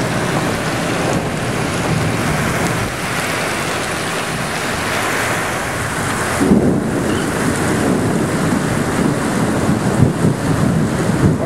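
Torrential wind-driven rain of a severe thunderstorm pouring down, with strong wind gusting across the microphone; a steady, dense roar of rain and wind.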